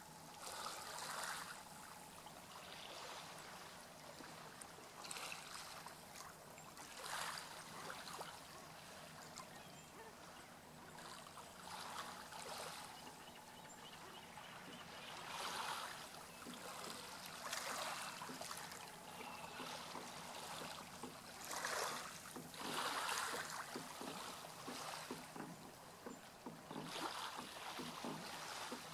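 Oars of a small rowboat dipping and pulling through calm water: a soft splash or swish every two to three seconds, over a faint steady low hum.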